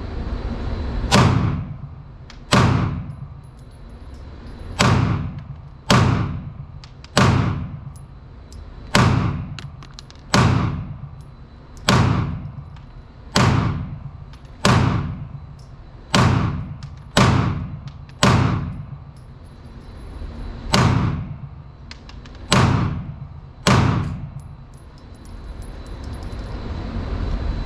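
About sixteen shots from a Taurus PT-92 AFS 9mm semi-automatic pistol, fired one at a time at an unhurried pace of roughly one every second or two. Each sharp crack has a short echo off the walls of an indoor range.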